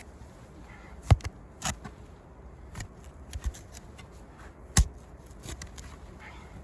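A shovel jabbing into packed debris: a few sharp strikes, the two loudest about a second in and just before five seconds in, with lighter knocks between.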